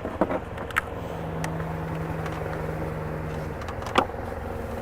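A few sharp clicks and knocks as an S&B air filter is pushed and snapped into the plastic intake box, the loudest about four seconds in, over a steady low hum. A faint steady tone sounds through the middle for a couple of seconds.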